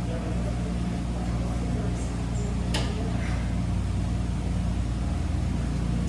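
Wascomat Senior W125 35-pound commercial washing machine running with a steady low motor hum, and one sharp click a little under three seconds in.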